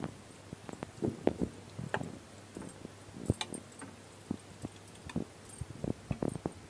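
Steel ladle stirring a thick rice-and-dal mash in a steel pan: irregular scrapes and light knocks of metal on metal, with soft wet squelches from the mixture.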